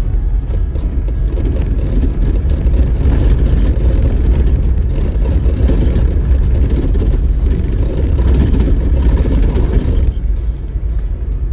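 Vehicle driving on a dirt road: a steady low rumble of engine and road noise.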